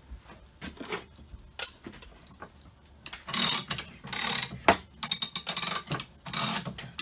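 Metallic clicking and rattling from a hand-cranked slip roll with a ratchet coupling as its handle is worked. A few light knocks come first, then loud rattling bursts about twice a second start about three seconds in.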